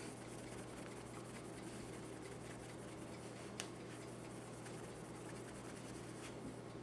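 Faint, steady rubbing of a sock-covered hand polishing metal-polish cream into a pistol barrel, with one small sharp click about three and a half seconds in.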